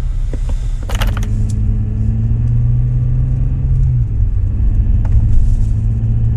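BMW 7 Series driving, heard inside the cabin: a steady low engine and road drone, with a few short clicks about a second in. The car is running with a drivetrain fault warning up.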